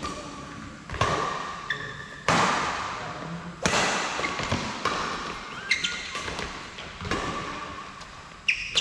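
Badminton rackets striking a shuttlecock in a doubles rally: about six sharp hits, roughly one every one and a half seconds, each echoing in a large hall. Short squeaks, likely from court shoes, come between the hits.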